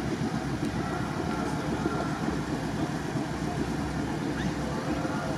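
Off-road vehicle engine running steadily at idle.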